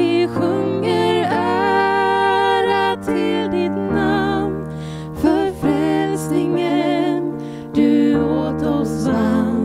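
A slow song is sung to a sustained instrumental accompaniment. A singing voice with vibrato carries the melody over long held chords that change every second or two.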